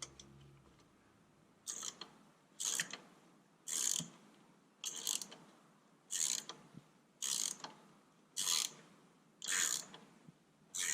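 Socket ratchet clicking in short back-swings, about one stroke a second, nine strokes in all, as it tightens the bolt of a newly fitted torque mount on a 2003 Toyota Camry.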